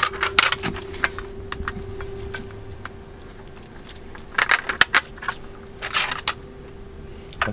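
Sockets and a plastic twist-lock socket tray clicking and clattering as the loaded tray is handled, in a few short clusters of clicks, over a steady hum.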